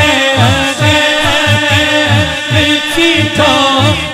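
Devotional naat music with a steady hand-drum beat, its low strokes dropping in pitch about two to three times a second, under sustained melody and a singing voice.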